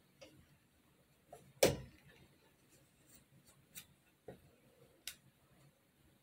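A few light clicks and knocks from small objects being handled, with one louder thump about one and a half seconds in.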